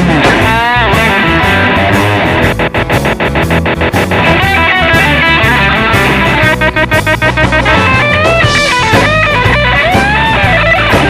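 Electric guitar played as a sound effect through a BOSS DD-8 digital delay: swooping, sliding notes, with a run of rapid stuttering repeats, about seven a second, a couple of seconds in.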